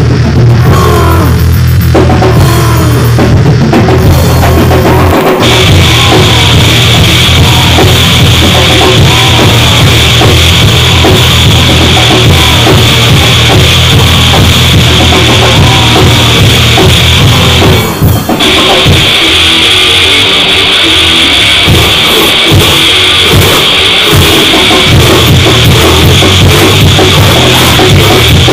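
Gore noise music: a wall of heavily distorted noise with drums and a thick distorted low end. A loud, harsh high hiss comes in about five seconds in, and the sound breaks off briefly around eighteen seconds before resuming with choppier low hits.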